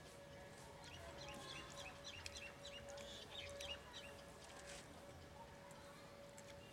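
Faint: a small bird chirping in a quick run of short calls for a few seconds starting about a second in, over a steady hum. Light clicks of fingers working rice on steel plates are mixed in.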